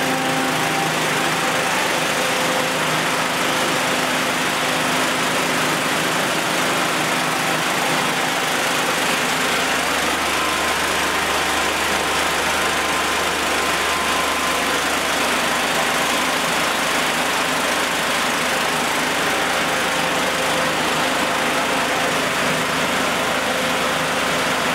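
Portable firefighting ventilation fan driven by a small petrol engine, running steadily at speed with a steady engine note and the rush of the fan, as used to blow smoke out of a building after a fire.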